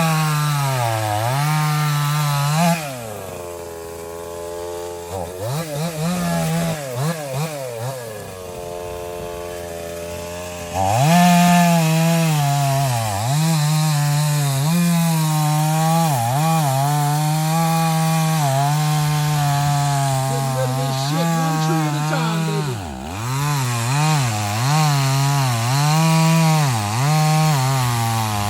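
Husqvarna chainsaw cutting wood at high revs, its pitch wavering up and down under load. About three seconds in it drops to idle with a few quick throttle blips. It revs back up around eleven seconds and cuts on, with a short drop in pitch near twenty-three seconds.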